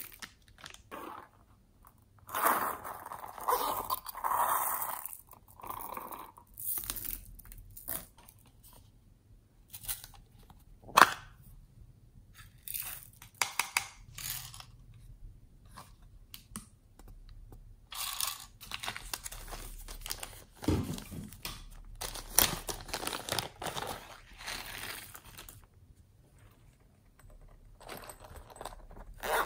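Thin plastic bags crinkling in bursts with quiet gaps between, as slime add-ins are handled, with one sharp click about eleven seconds in.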